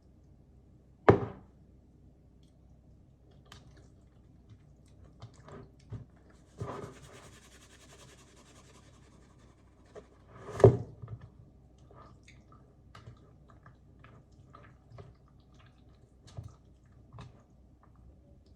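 Kitchen food-prep handling sounds while tuna dip is mixed: two sharp knocks, one about a second in and one around ten seconds, a brief hissing rustle around seven seconds, and small clicks and squishy sounds between them.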